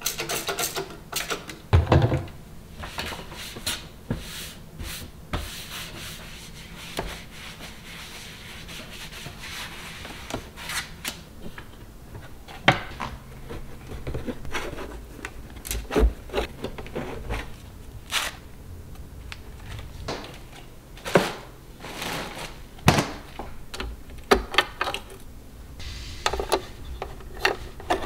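Hands handling a Laresar robot vacuum's self-emptying dock: scattered plastic clicks and knocks as the lid is opened and parts are taken off, with rubbing and rustling as the paper dust bag is handled.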